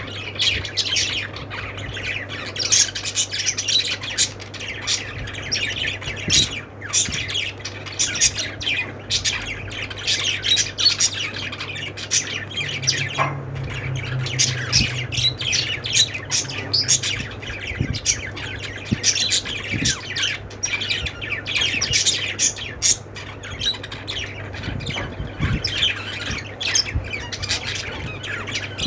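A flock of small pet parrots, budgies and lovebirds, chirping and squawking nonstop in many quick overlapping calls, over a low steady hum.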